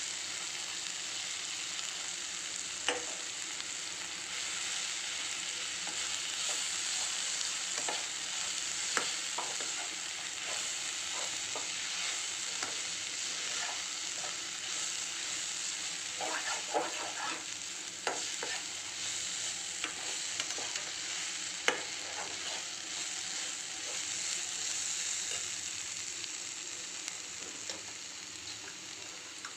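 Chopped okra sizzling in oil in a pan, stirred with a slotted metal spatula. Scattered clicks and taps come as the spatula scrapes against the pan.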